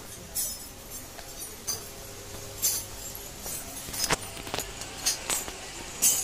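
Scattered sharp metallic clinks and clatter, eight to ten of them at irregular intervals, the loudest near the end, over a steady low background hum.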